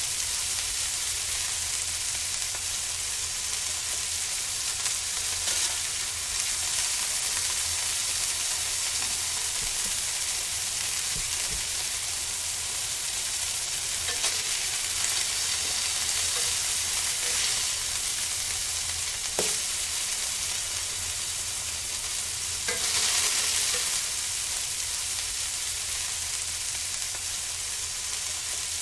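Köfte meatballs sizzling steadily as they cook over the heat, with a few light clicks.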